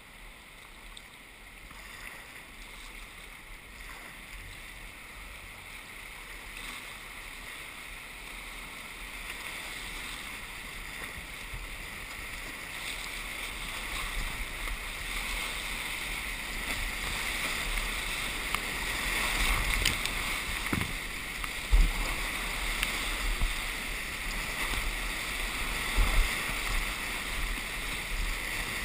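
Rushing whitewater of a river rapid heard from a kayak, a steady hiss that grows louder as the boat runs into the rapid. A couple of sharp knocks come in the last third.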